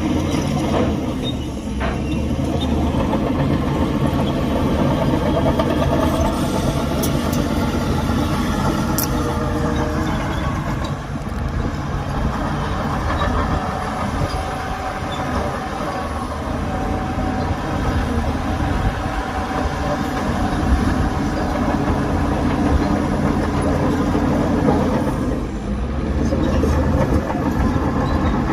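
Heavy diesel earthmoving machinery running steadily, with a few short clicks about seven to nine seconds in.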